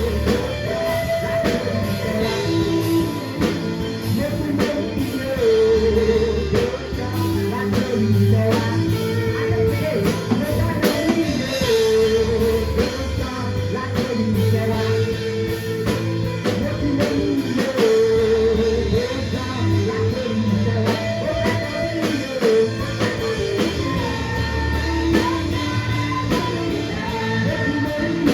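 A band playing a worship song, with drums keeping a steady beat, bass, guitar and a sung melody.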